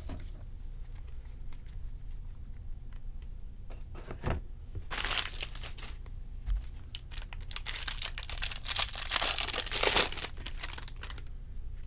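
Trading-card pack wrapper being torn open and crinkled by hand: a short knock about four seconds in, then crackly tearing and rustling about five seconds in and again, louder and longer, from about seven and a half to eleven seconds.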